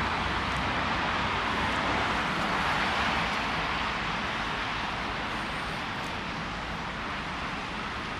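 Steady road traffic noise in a city street, an even rush of passing cars and buses that fades a little over the stretch.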